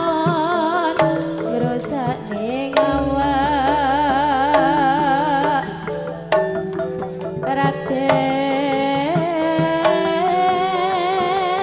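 East Javanese gamelan music for the Remo dance: a sung melody with wide vibrato over sustained metallophone tones, with sharp drum strokes now and then.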